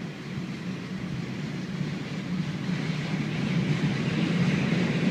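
Steady rumbling noise of a moving train, slowly growing louder.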